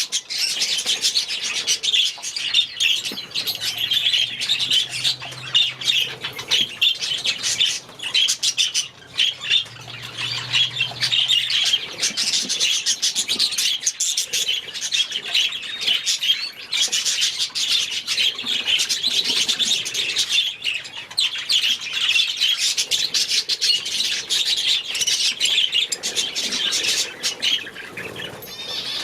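A flock of budgerigars chattering and chirping continuously, many short warbling calls overlapping.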